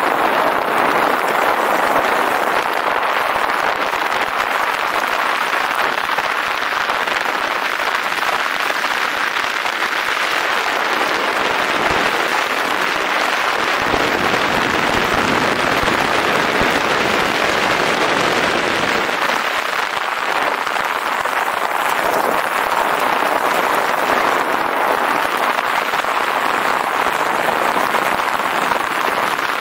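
Steady rushing, crackling noise of a downhill ride: tyres rolling over the track and wind past the camera, with a heavier low rumble for several seconds in the middle.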